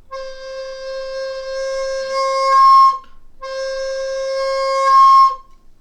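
Plastic soprano recorder sounding its low C twice, each note held and blown harder and harder until it breaks up an octave into a shrill squeak just before it stops. The demonstration shows how much breath the low C takes before it overblows.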